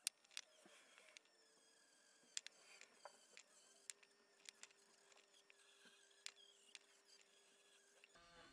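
Near silence with faint scattered clicks and ticks of a rotary tool's metal bit touching the aluminium burner bowl of a Coleman 508A gasoline stove. A faint steady hum comes in about midway.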